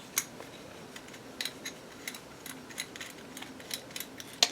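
Faint, scattered small clicks and ticks of Zippo lighter parts being handled, with a sharper click just after the start and a few more toward the end.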